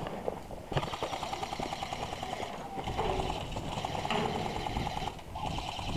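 Airsoft electric guns firing long full-auto strings, a fast buzzing rattle. It starts about a second in and keeps going, with a short break near the end.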